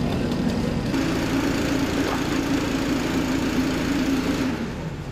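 A small petrol engine running steadily at a constant speed, which cuts out near the end.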